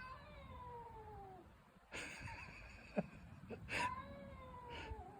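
House cat caterwauling: three long, drawn-out yowls, each sliding down in pitch, the second starting with a harsh noisy onset, and a short click about three seconds in. The cat is yowling at a neighbour's cat, which the owner takes for an attempt to terrify her.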